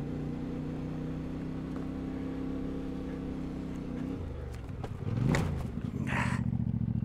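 Motorcycle engine idling steadily. About five seconds in, a bike revs up and runs louder, as if pulling away.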